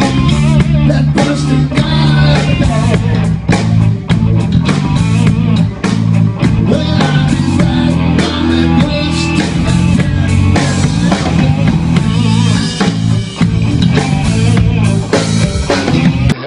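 Rock band playing: electric bass guitar and drum kit with a steady beat, and a man singing lead vocal.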